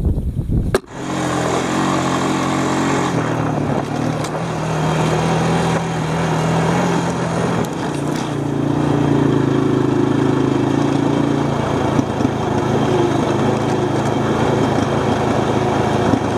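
Small vehicle engine running while riding along a gravel road, its pitch shifting up and down a couple of times with the throttle. In the first second, before the engine starts, there is a short clatter of stones being handled.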